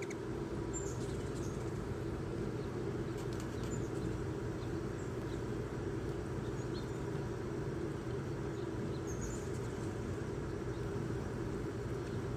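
Steady low outdoor rumble, with a few faint, short high chirps from small birds scattered through it.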